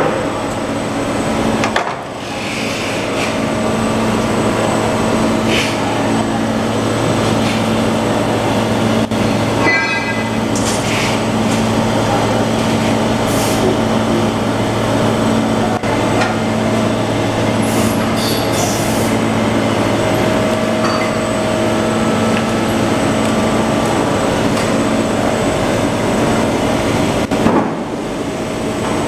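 JYT 550 butyl tape extruding machine running: a steady machine hum with a low drone and several held tones, with a few scattered clicks and knocks. The sound dips briefly about two seconds in and again near the end.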